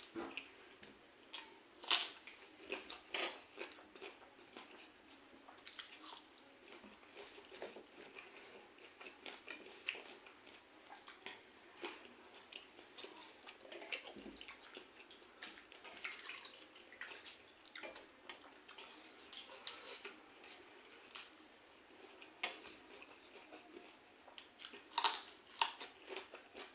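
Close-up eating of pakhala (cooked rice soaked in water) by hand: wet squishes, drips and smacks of the watery rice, with chewing and biting. Irregular short clicks throughout, a few louder ones.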